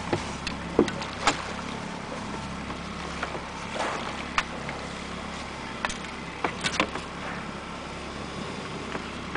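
A boat's motor running steadily with a low hum, with a handful of short sharp knocks, the loudest about a second in and a cluster between six and seven seconds.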